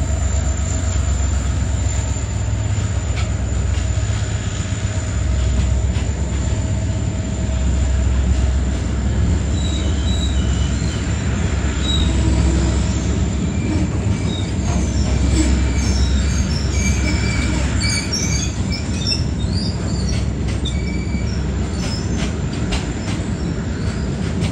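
Goods train of covered wagons hauled by WDG4D diesel locomotives rolling past on the next track: a steady heavy rumble of wheels on rail. Scattered short, high wheel squeals come in from about ten to twenty seconds in.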